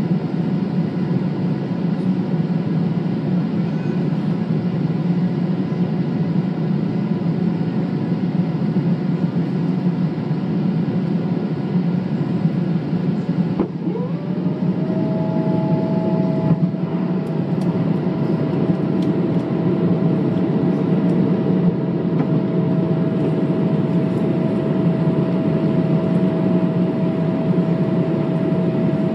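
Steady cabin roar inside a Boeing 777-300ER on descent, engine and airflow noise heaviest in the low range. About halfway through, a whine rises in pitch and then settles into a steady tone over the roar.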